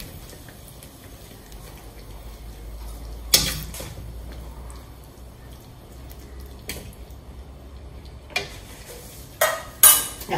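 A metal ladle clinking against an aluminium wok of thick sweet-and-sour sauce: one sharp clink about a third of the way in, a few light taps later, and a quick run of louder clinks near the end, over a faint low hum.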